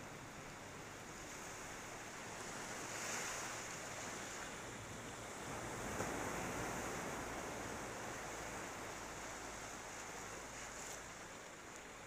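Ocean surf washing onto a flat beach as a steady hiss, swelling about three seconds in and again around six seconds, then easing off.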